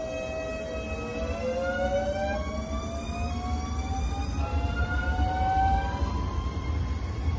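NS ICNG (Alstom Coradia Stream) electric train accelerating: its traction drive whines in several tones that rise steadily in pitch from about a second in, over a low rumble of wheels on rails.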